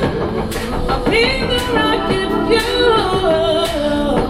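A woman singing long, sliding melodic lines into a corded handheld microphone, amplified, over backing music.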